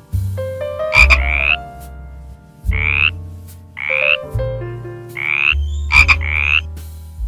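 Four short rasping animal calls, each rising in pitch over about half a second, over background piano music.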